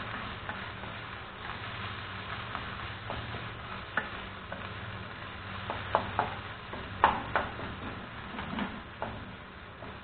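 Wooden spatula stirring fish roe and grated coconut in a nonstick frying pan, the mixture sizzling as it fries. A few sharp taps of the spatula against the pan come from about four seconds in, the loudest around seven seconds, over a steady low hum.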